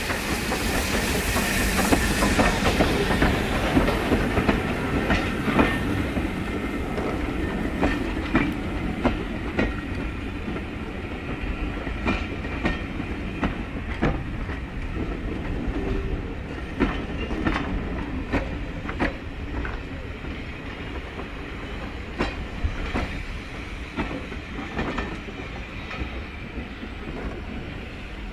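A train passing on the rails, with its wheels clicking over the rail joints. It is loudest with a rushing noise in the first few seconds, then the clicks go on and slowly fade.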